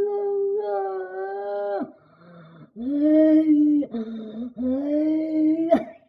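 A man's voice singing long drawn-out notes in a high voice: one note held for about two seconds, then after a short pause three more held notes at a lower pitch.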